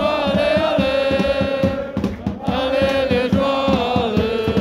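A crowd of football supporters singing a chant in unison, with hand claps keeping time.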